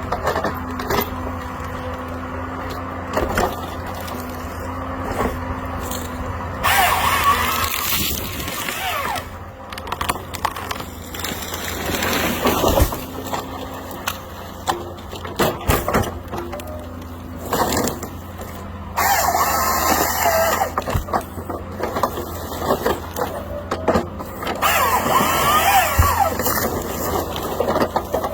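Forestry harvester at work: its engine runs steadily, broken by several loud, noisy spells of a few seconds each as the head saws and handles the tree.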